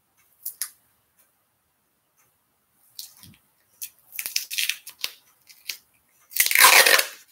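Duct tape being pulled off the roll: a few short ripping bursts, then one long, loud rip near the end.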